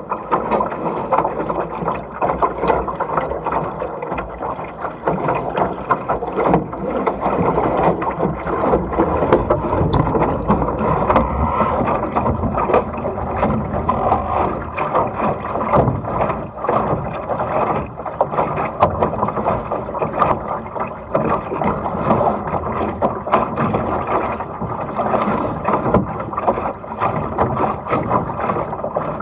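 Water rushing and splashing along the hull of a small sailing dinghy under way through chop, a continuous rushing broken by many quick splashes.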